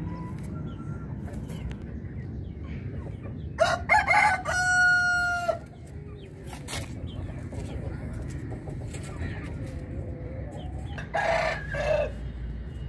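A chicken calling loudly about four seconds in: a few short choppy notes and then one long held note. A second, shorter call of choppy notes comes near the end, over a steady low background rumble.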